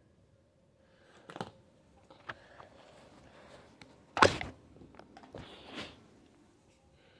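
Plastic slime tubs being handled: a few light knocks, then a loud plastic clack about four seconds in, followed by a short scraping rustle.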